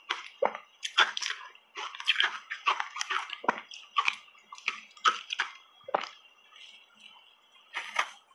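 Close-miked wet chewing and lip-smacking of a soft cupcake coated in matcha powder, a quick run of moist clicks that thins out for a moment before a fresh big bite about eight seconds in.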